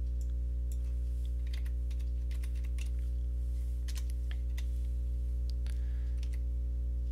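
Scattered computer keystrokes and mouse clicks as a value is typed into the CAD program, over a steady low hum.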